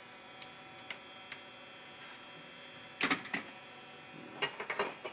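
Light clicking and clattering of hand-handled wire leads and meter probes: a few single clicks, then short bursts of clatter about three seconds in and again near the end.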